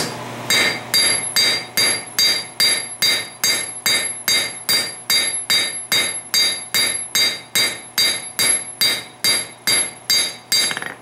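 Hand hammer striking a red-hot ball peen on an anvil to flatten it, a steady rhythm of about two and a half blows a second. Each blow rings briefly with a high metallic anvil tone. The blows stop near the end.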